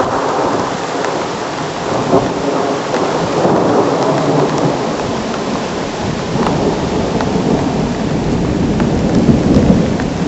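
Supercell thunderstorm: heavy rain with strong wind gusting over the microphone and a rolling rumble that swells and eases, loudest about nine seconds in.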